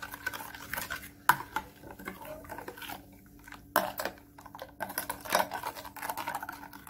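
Metal spoon stirring a thin milk-and-egg batter in a glass bowl, with repeated clinks and scrapes against the glass and two sharper knocks, about a second in and near four seconds.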